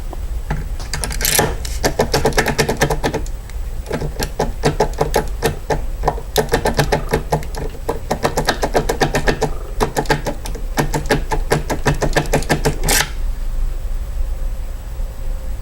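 Schlage depth key being wiggled hard in a Schlage KIK lock cylinder: a fast clicking rattle of the pins against the cut key, in spells with short pauses, stopping about thirteen seconds in. The key is being worked so that any pin that binds leaves an impression mark.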